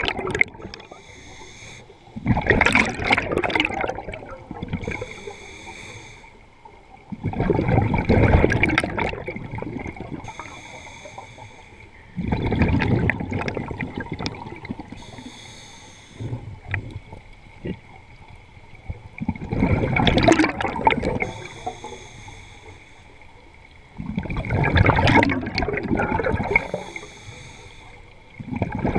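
A scuba diver breathing through a regulator underwater: about every five seconds a loud gush of exhaled bubbles, then a shorter, quieter hissing inhale through the demand valve.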